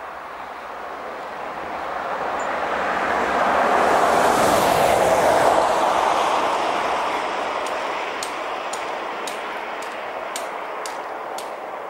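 A vehicle passing by on a road: its tyre and engine noise swells to a peak about four to five seconds in, then slowly fades away.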